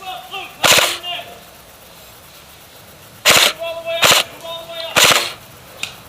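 Airsoft guns firing four short rapid bursts, one about a second in and three close together between about three and five seconds in.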